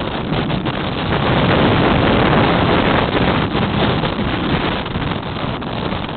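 Strong wind buffeting the microphone in a loud, rumbling rush that swells about a second in, with waves breaking under the pier mixed in.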